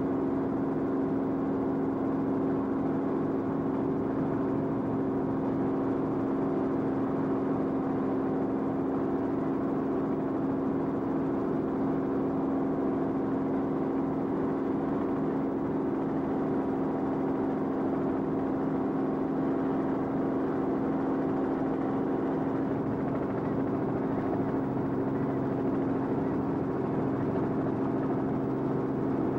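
Steady drone of an aircraft engine, one constant low hum with overtones that neither rises nor falls.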